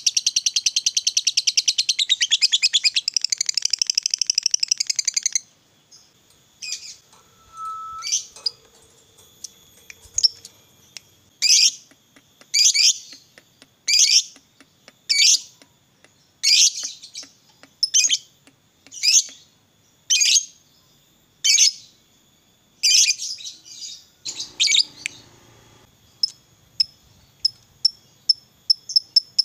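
Fischer's lovebird singing: a long, rapid chattering trill, the prized 'ngekek', that stops about five seconds in. It is followed by single shrill chirps about once a second, then quick ticking calls near the end.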